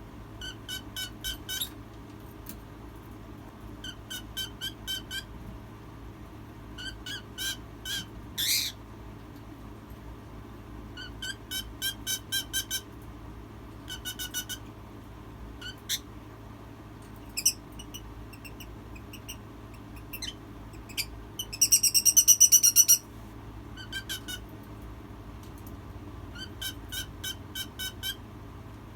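Hen making rapid, high-pitched peeping trills in short bursts of about a second, repeated every few seconds, with one louder, harsher squawk lasting about a second and a half, around three-quarters of the way through. A steady low hum runs underneath.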